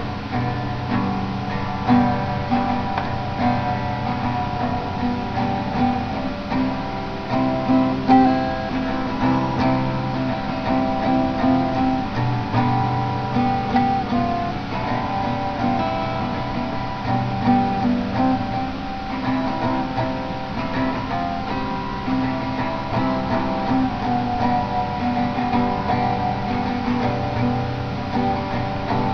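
Background music played on acoustic guitar, strummed and plucked with a steady rhythm.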